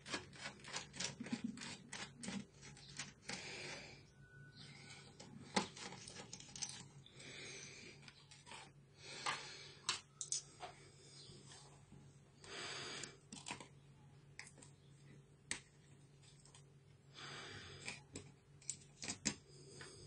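Faint, irregular clicks, taps and short scrapes of disassembly work on an HP Mini 110 netbook: a screwdriver working its small screws, and metal and plastic parts lifted off the chassis and set down on a wooden table.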